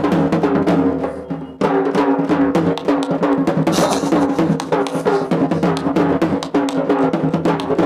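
Instrumental break of a Punjabi folk song: fast dhol drumming over a steady melody instrument line. The music dips about a second in, then comes straight back in.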